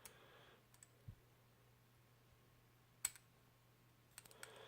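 A few faint, sharp clicks of small brass lock pins and metal tools being handled while a padlock cylinder is taken apart, the loudest about three seconds in.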